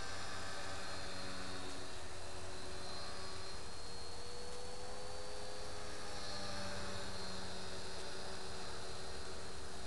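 Electric Align T-Rex 450 Pro RC helicopter flying at a distance: a steady whine from its motor and rotor, its pitch wavering slightly as it manoeuvres, over a low hum.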